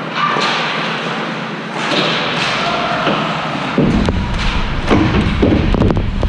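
Thumps and knocks in a hockey rink over steady background noise. A low rumble sets in about four seconds in, followed by a quick cluster of sharp knocks.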